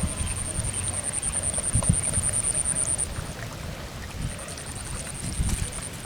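Wind buffeting the microphone in gusts. A steady high-pitched pulsing whine runs over it, breaks off about three seconds in and comes back about a second later.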